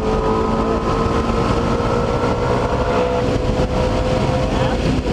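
Car engine pulling hard under full throttle, heard from inside the cabin over heavy wind and road noise; its note climbs slowly as the car gains speed, then falls near the end as the throttle comes off.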